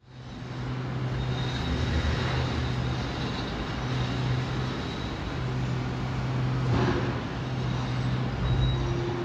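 Engines running with a steady low rumble over outdoor background noise, with a brief louder noise about seven seconds in.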